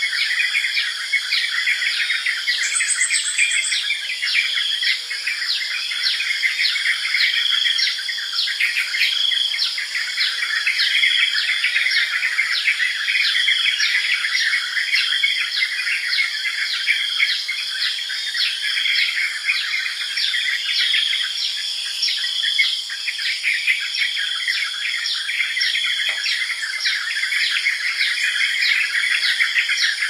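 Yellow-vented bulbuls calling: a dense, continuous chatter of short chirps, several a second, over a steady high ringing tone.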